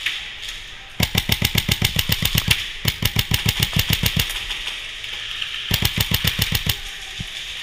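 Airsoft M4-style rifle firing on full auto in three rapid bursts: a long one about a second in, a second just after, and a shorter one near the end.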